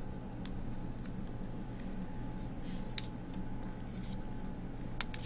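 A pencil scratching lightly on paper as it traces around tangram pieces, with a few sharp clicks as the pieces are handled, the loudest about three and five seconds in, over a steady low hum.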